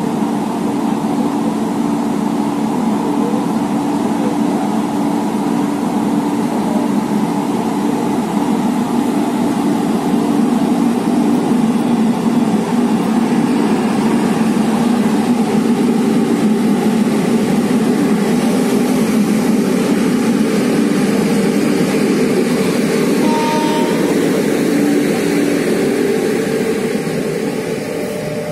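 WAP-7 electric locomotive pulling slowly out of the station past the listener, with a loud, steady hum. In the latter part its coaches roll by and a rising hiss of wheel and rolling noise joins the hum, which then eases off near the end.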